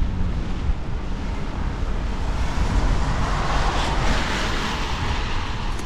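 Wind buffeting the microphone with a steady low rumble, while a hiss of traffic on the wet road swells in the middle and fades again.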